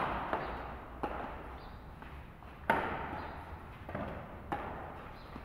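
Badminton rackets hitting a shuttlecock during a doubles rally: a series of sharp, short smacks, irregularly spaced about a second or more apart, the loudest near the middle, each with a brief echo.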